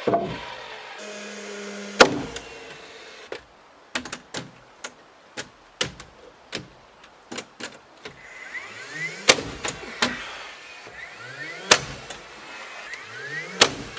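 Carpentry work on wood: a run of sharp knocks, then short rising whines of a small motor, each about a second long, repeated several times among further knocks.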